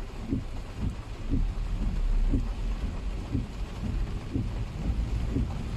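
Heavy rain on a car with a steady deep rumble, while the windshield wipers sweep about once a second, each pass giving a short rising sound.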